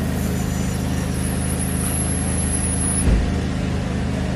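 Steady low hum of background machinery, with a faint high whine that fades out about three seconds in and a soft low thump just after.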